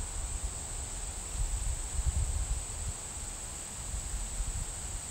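A steady, high-pitched chorus of insects in summer woodland, with wind buffeting the microphone as an uneven low rumble that swells about two seconds in.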